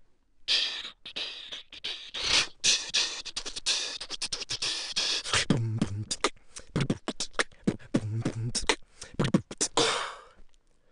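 A human beatboxer performing: a fast run of vocal percussion, with clicks and hissing hi-hat and snare sounds, a few deep hummed bass notes in the second half, and a long hiss near the end.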